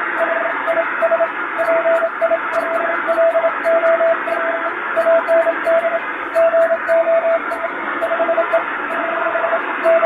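Morse code sent by hand on a straight key: a single steady medium-pitched tone keyed in dots and dashes, heard over an even hiss of simulated shortwave receiver noise. The text carries eight-dot error signs and corrections.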